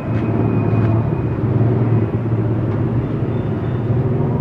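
Motor scooter engine running at a steady low hum, with road and traffic noise.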